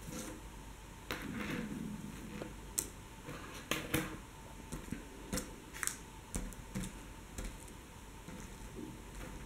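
Scattered small clicks and a brief rustle from hands handling a crocheted rope of seed beads.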